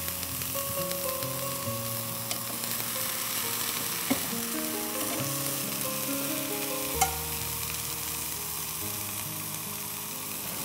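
Eggplant slices sizzling steadily in hot oil in a frying pan, with a few sharp clicks as metal tongs lay more slices in. Soft background music with slow held notes plays under it.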